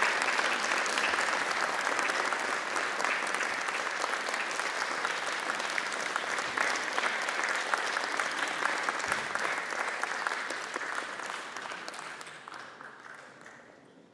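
Audience applauding steadily, then dying away over the last few seconds.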